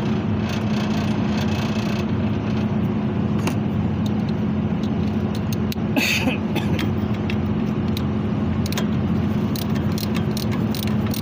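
Steady low machinery hum with a strong drone around 200 Hz, and scattered metallic clicks and clinks of hand tools on metal, the brightest about six seconds in.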